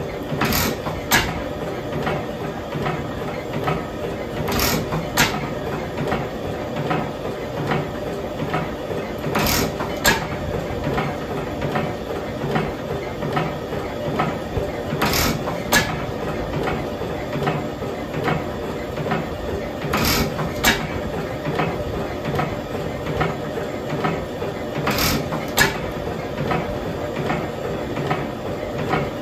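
Early-1900s Nayler hot tube oil engine running steadily, on its first run after repairs to the inlet valve seats and resetting of the exhaust valve clearances. A continuous even ticking from the engine, and about every five seconds a pair of sharp cracks, a little over half a second apart.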